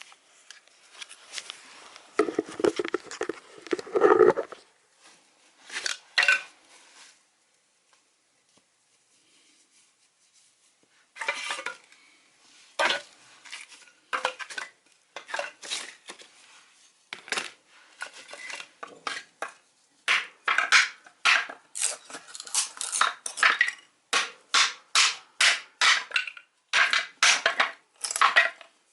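Metal tin can being worked with hand tools: irregular metallic clattering and handling, a brief lull, then scattered sharp clinks that settle into a steady run of sharp metallic strikes about two a second near the end.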